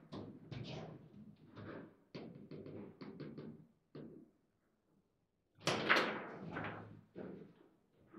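Table football play: a string of sharp knocks and clacks as the ball strikes the figures and the rods are worked, with a quiet spell of about a second and a half in the middle, then a louder flurry of hits.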